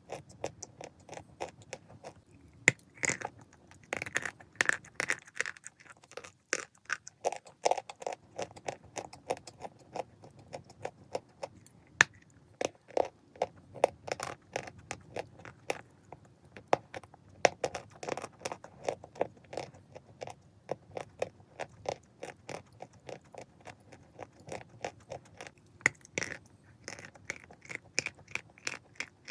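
A person biting and chewing dry edible chalk close to the microphone: a dense, irregular run of sharp crunches and crackles throughout.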